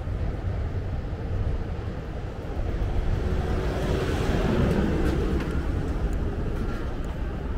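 City street traffic heard from a moving bicycle, under a steady low rumble, with a vehicle passing close by. It swells to its loudest about four and a half seconds in and then fades.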